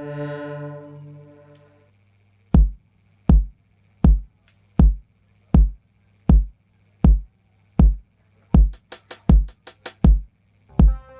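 Live electronic music. A held synth chord fades out, then after a short pause a kick drum starts a steady slow beat, about four kicks every three seconds. Fast hi-hat ticks join in near the end, and a new synth note enters just before it ends.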